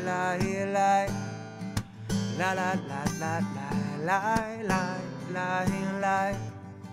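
Acoustic guitar strummed in a steady rhythm while a man sings long held notes with vibrato and no clear words.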